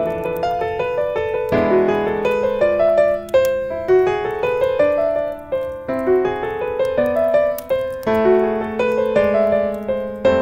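Solo piano music: a flowing melody of struck notes that ring and fade, over held lower notes.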